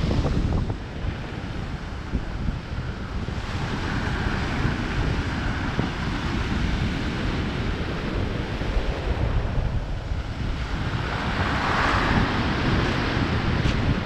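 Sea waves breaking and washing up a pebble beach, with the surf's hiss swelling near the end. Wind buffets the microphone with a gusty low rumble.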